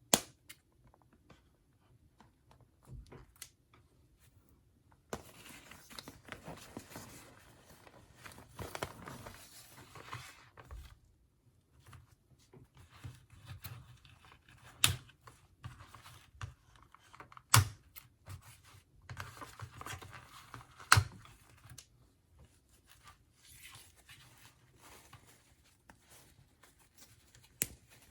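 Doll packaging being handled and opened by hand: irregular crinkling and tearing of plastic and cardboard, with a few sharp loud snaps.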